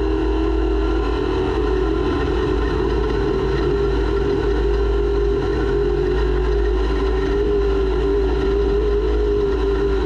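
Off-road race vehicle's engine running hard at a nearly steady pitch, heard from an onboard camera, over a heavy low rumble.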